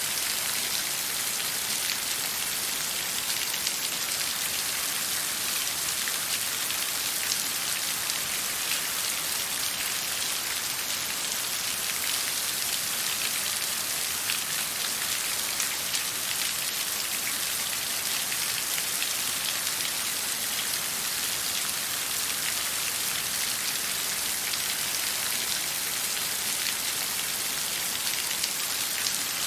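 Steady hiss of water with dense fine pattering drops, even and unchanging.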